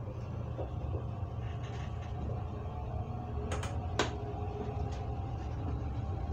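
CAF-built CPTM Series 7000 electric train running along the track, heard inside the driver's cab: a steady low rumble with faint steady tones over it. A few sharp clicks come about three and a half to four seconds in.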